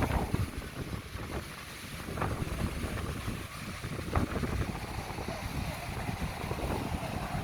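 Waves of a rough sea just after a typhoon washing in, with wind buffeting the microphone.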